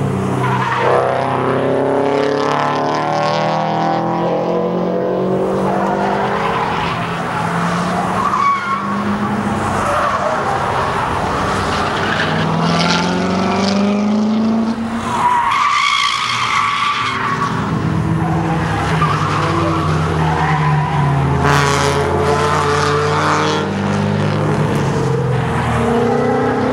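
Cars on a road course lapping through a corner one after another, their engines rising and falling in pitch as they slow for the bend and accelerate out. Tires squeal at times, most strongly about halfway through.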